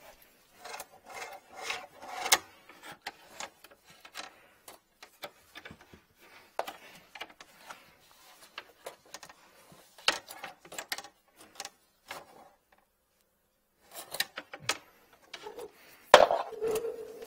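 Handling noise from a sewer inspection camera: its yellow push cable rubbing and clicking as gloved hands pull it off the reel and shift it in the hard case, with scattered knocks against the case. The rubbing and knocking grow loudest near the end.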